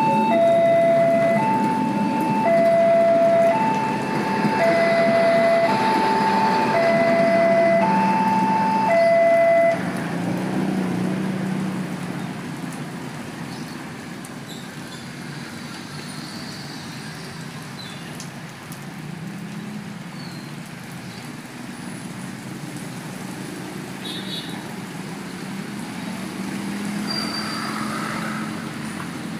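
Railway level-crossing warning alarm sounding a loud two-tone signal, alternating between a lower and a higher tone, that cuts off abruptly about ten seconds in as the crossing reopens. After that, motorcycles and cars drive across on a wet road.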